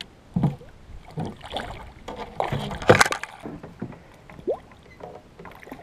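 Water splashing and sloshing as a hand holds a tarpon by the jaw at the surface beside a boat's hull for release, with small irregular splashes and one sharp, louder splash about three seconds in.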